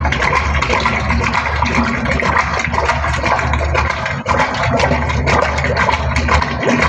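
Steady rushing of water over a continuous low machine hum, with a brief dip about four seconds in.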